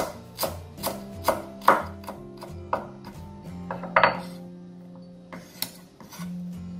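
Cleaver chopping coriander roots on a wooden cutting board: a run of sharp knocks about two a second, then a few more spaced-out knocks. Quiet background music plays under it.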